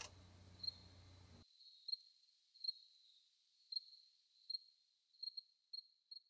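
Faint cricket chirps, short single high notes about a second apart that come closer together toward the end, over a faint steady high tone. A low background hum cuts off about one and a half seconds in.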